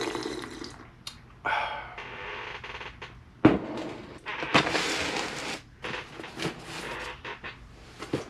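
A person sipping and slurping hot coffee, with a sharp knock about three and a half seconds in and then rustling and small handling clicks.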